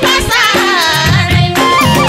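Live Nepali dohori folk music: a wavering melody line over a steady madal drum rhythm, with keyboard accompaniment.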